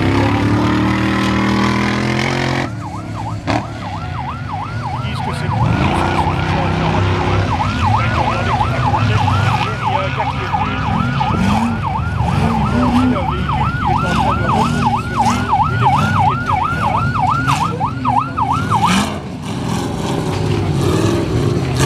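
An electronic siren yelps in a fast rising-and-falling wail, about three cycles a second. It starts a few seconds in and stops a few seconds before the end. Under it, off-road race vehicle engines run and rev.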